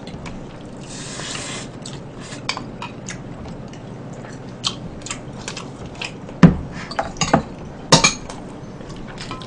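Spoons, chopsticks and ceramic rice bowls clinking and tapping as two people eat, in scattered short ticks. There is a brief hiss about a second in, a dull heavy knock just past the middle, and a louder clatter of utensil on dish near the end.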